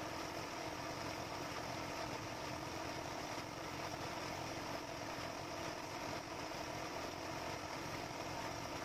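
Air compressor running steadily, the air supply for a paint spray gun: a constant motor hum under an even hiss.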